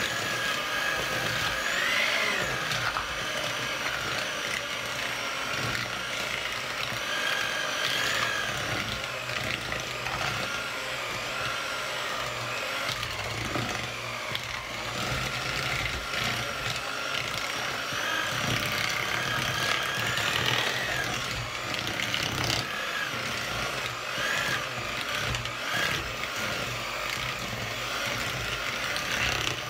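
Electric hand mixer running steadily, its twin beaters whisking cake batter of butter, sugar, eggs and flour in a mixing bowl; the motor's pitch wavers a little as the beaters work through the mix.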